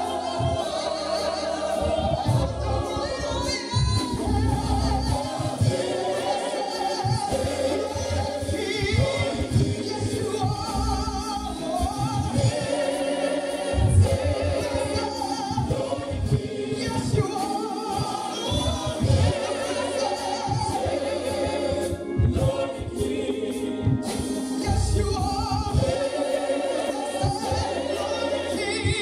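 Gospel choir singing a gospel song with accompaniment.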